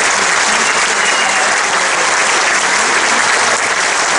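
Audience applauding, a steady dense clapping that holds at one level throughout.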